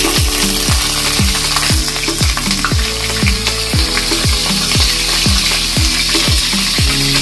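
Chicken pieces frying in hot oil, a steady sizzle, over background music with a regular bass beat.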